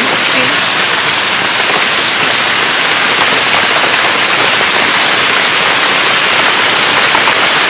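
Steady rain falling: a constant hiss with many small drop ticks.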